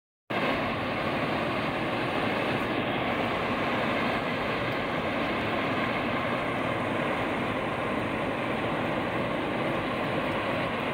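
Steady road noise of a moving car, heard from inside the cabin.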